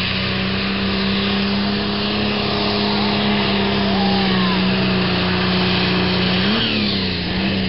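A pulling tractor's diesel engine running flat out under load as it drags the sled, a loud, steady drone. Near the end its pitch briefly rises, then drops as the engine loses revs.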